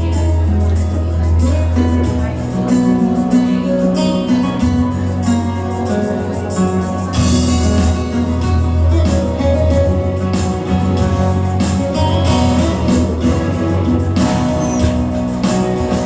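Instrumental music with held notes, a strong bass line and a steady beat: the instrumental opening of a morning prayer song.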